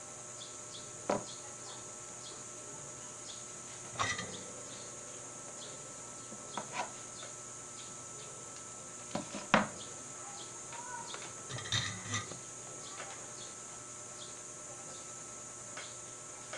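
Scattered light clicks and knocks of multimeter probes and circuit boards being handled on a workbench, the sharpest a little past halfway. Behind them runs a steady high buzz of insects.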